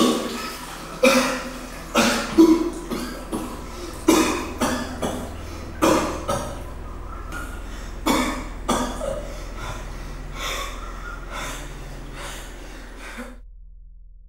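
A man coughing and gasping for breath, a dozen or so harsh coughs about a second apart that grow weaker, as if choking on water after being held under; the sound cuts off near the end.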